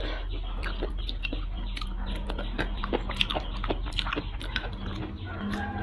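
Close-miked eating of soft braised duck feet: irregular wet clicks and smacks of chewing and of fingers picking at the tender, fall-off-the-bone meat.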